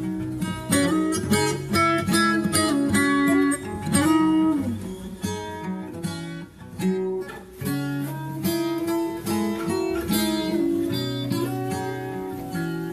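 Guitar music: a steady run of plucked and strummed notes, with a note sliding in pitch about four seconds in.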